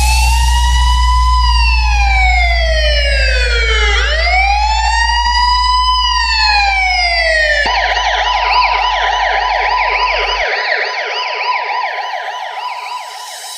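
Police siren sound effect in a sound-check music track: two slow wail cycles rising and falling in pitch, then switching about eight seconds in to a fast yelp. A deep steady bass tone runs under it and cuts off a little after ten seconds.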